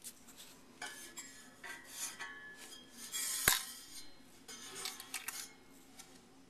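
Heating vent cover being handled: light clinks and rattles of its grille, with one sharp knock about halfway through.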